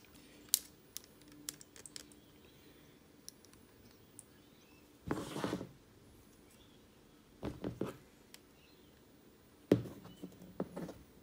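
Handling of 3D-printed plastic finger parts as a length of plastic filament is threaded through them for a pin: scattered small clicks and taps, a short scraping rustle about five seconds in, and clusters of clicks near eight and ten seconds.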